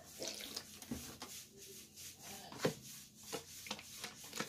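A plastic spoon stirring and scraping a thick white slime mixture in a plastic bowl, with irregular knocks and scrapes. Water is poured in from a plastic bottle at the start.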